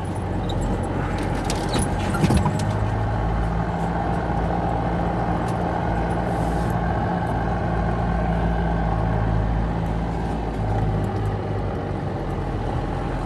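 4x4 engine running steadily at low speed on a rough dirt track, heard from inside the cab, with road noise and a short cluster of rattles and knocks about two seconds in.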